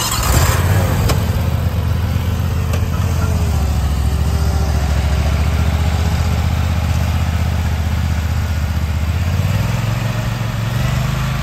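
Zero-turn riding lawn mower engines running steadily while mowing, a deep, continuous engine hum close by. A short burst of noise comes at the very start, and the engine note changes about nine and a half seconds in.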